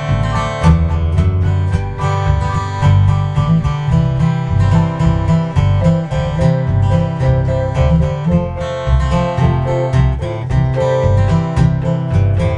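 Acoustic guitar strummed in a steady rhythm with a Korg PS60 keyboard playing along, in a country-gospel hymn.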